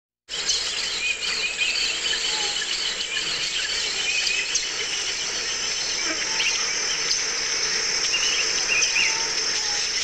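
Deep jungle ambience: a steady, high, dense insect chorus with many birds chirping and whistling over it. It starts suddenly a fraction of a second in.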